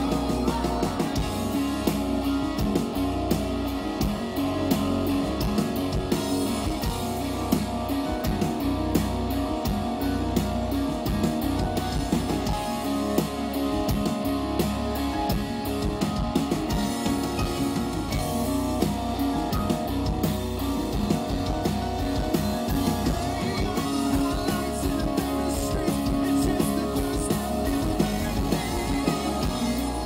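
Live rock band playing: electric guitar with a full drum kit behind it.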